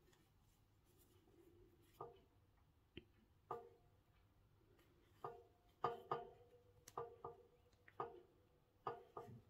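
Faint, irregular soft clicks and ticks from hands working a metal crochet hook through cotton yarn, against near silence. The first comes about two seconds in, and they come more often in the second half.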